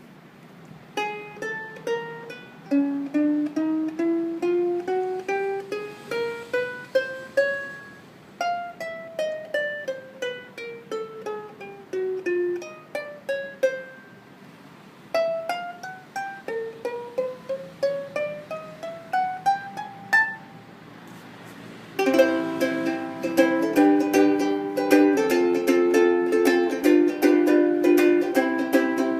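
All-solid-mahogany Honolele ukulele played as single plucked notes running up and down scales, then, after a short pause, strummed chords for the last third.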